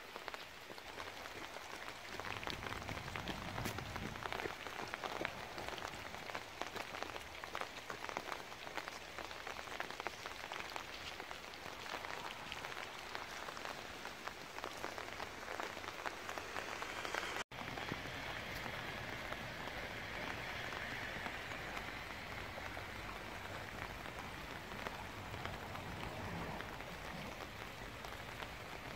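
Steady rain falling, with many small drops ticking. The sound cuts out for an instant about seventeen seconds in.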